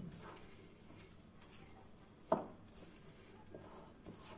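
Faint sounds of a hand working flour into soft bread dough in a ceramic bowl, with one sharp knock a little after two seconds in.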